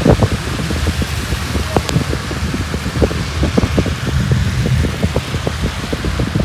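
Car travelling on a wet road, filmed from inside with a phone: a steady rush of road noise with wind buffeting the microphone in dense, irregular low thumps.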